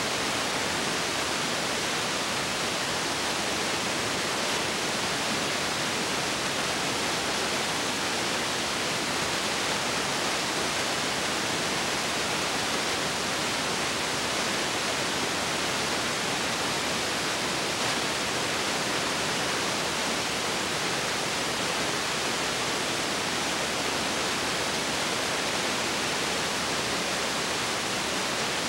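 Steady, even hiss with nothing else in it: the noise floor of a silent home-movie transfer.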